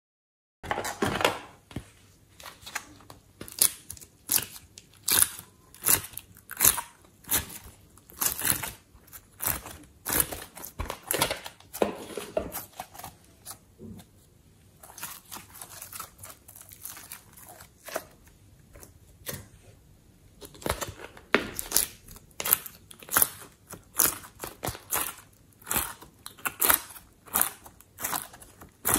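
Soft foam clay and slime being squeezed, pulled and pressed by hand, making a quick, irregular run of short sticky clicks and squishes, with a brief lull about halfway.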